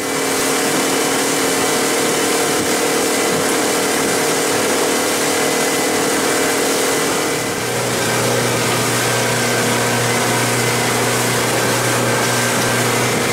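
A 17.5-foot Arima Sea Chaser boat's motor running under way at speed, mixed with a steady rush of wind and water. About seven and a half seconds in the sound changes and a deeper hum joins the engine note.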